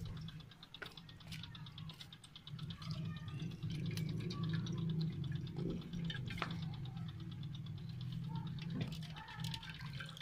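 Tamarind water poured from a steel pan into a mesh strainer set in a steel plate, with a few light clinks of steel on steel, over a steady low hum and fast faint ticking.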